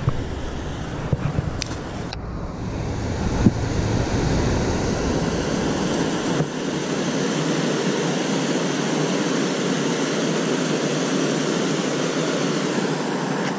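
Water pouring steadily over a concrete canal spillway, a constant rushing noise that grows a little louder about four seconds in.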